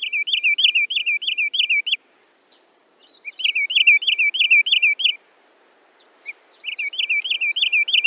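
Wood sandpiper calling: a rapid series of sharp, high notes, about five a second, in three bouts of about two seconds each with short pauses between.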